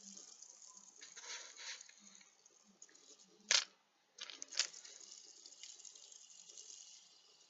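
Faint handling and rustling, with two short sharp clicks about a second apart partway through.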